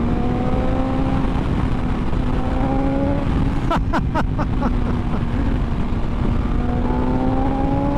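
BMW S1000XR's inline-four engine pulling under acceleration, its pitch rising slowly, over heavy wind rush. About four seconds in the engine note dips briefly with a few sharp clicks, then climbs again.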